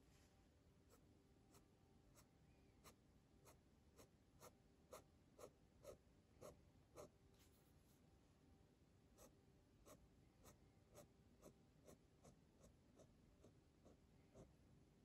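Staedtler pigment liner fineliner pen scratching short, quick strokes on sketchbook paper while hatching palm fronds, about two strokes a second. The strokes are faint, and louder for a few seconds in the middle.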